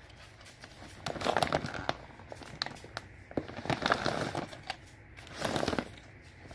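Crinkling and rustling as a cardboard carton of drink bottles is turned over and rubbed against plastic dog food bags, with scattered clicks. It comes in three louder stretches: about a second in, around four seconds and around five and a half seconds.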